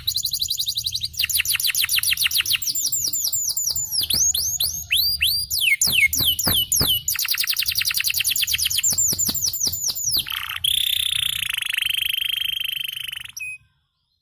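Domestic canary singing long, fast trills of repeated falling notes, with a run of slower downward-sweeping whistles in the middle, then a buzzy rolling note. The song stops suddenly near the end.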